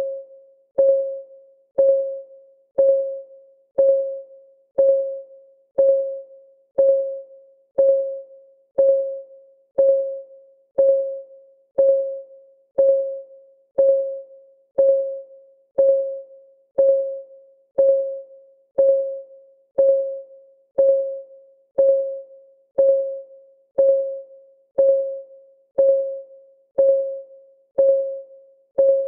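Clock-ticking sound of a countdown timer: an even tick about once a second, each a short, pitched tock that dies away quickly.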